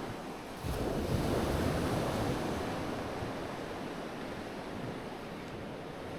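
Sea and wind noise: a rush of surf or gusting wind swells up about a second in, then slowly dies back to a steady wash.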